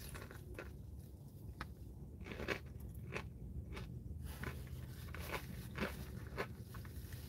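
A person biting into and chewing crispy breaded fried chicken close to the microphone: faint, scattered crunches, some about half a second apart.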